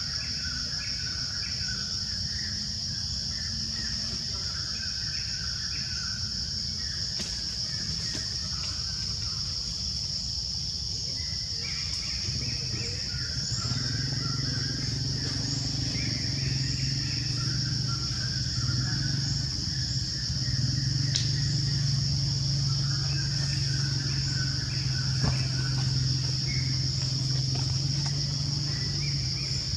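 Natural outdoor ambience: a steady high-pitched insect drone with scattered short bird chirps throughout. A low steady hum comes in about halfway through and stays.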